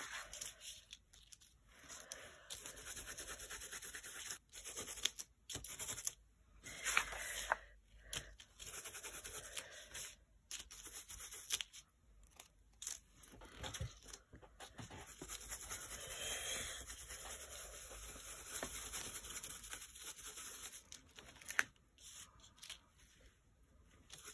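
Scratchy rubbing and dabbing of a paint sponge pressed through a plastic stencil onto a glossy book page, along with the rustle of stencils and paper being handled. It stops and starts repeatedly, with a few sharp clicks.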